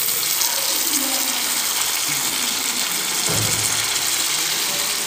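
Hot water poured into a hot kadai of frying mutton and potatoes, splashing and hissing steadily as it hits the oil and steams up. It is added because the curry has begun to stick and burn a little.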